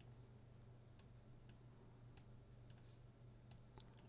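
Computer mouse buttons clicking, about eight faint, irregularly spaced clicks as strokes are drawn, over a faint steady low hum.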